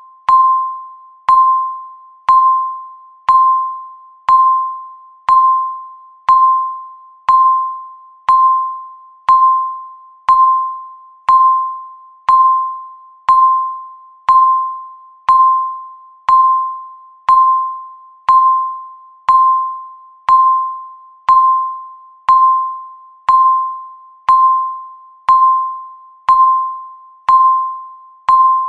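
Countdown timer's electronic tick sound: a short, sharply struck single-pitch tone that rings briefly and fades, repeating exactly once every second to mark each passing second.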